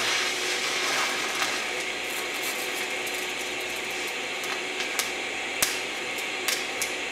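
Steady hiss of a scratch-start DC TIG arc tacking steel, with several sharp clicks and crackles in the second half as the tungsten is struck again.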